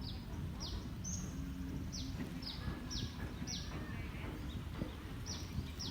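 A songbird repeating a short, high whistled note that drops sharply in pitch, about two notes a second, over a steady low rumble of wind on the microphone.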